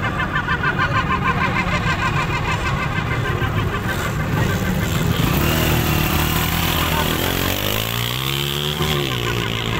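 Small motorcycle engine running close by, rising and then falling in pitch near the end as it is revved.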